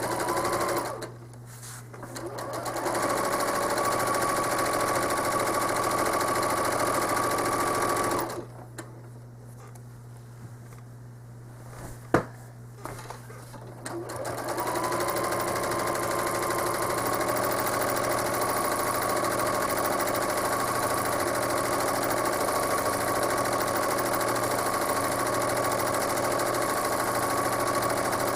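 Home sewing machine stitching fast and steady during free-motion quilting, stopping and starting: a brief stop about a second in, then it speeds back up and runs, stops again for several seconds with a single sharp click in the pause, and speeds up once more and runs on.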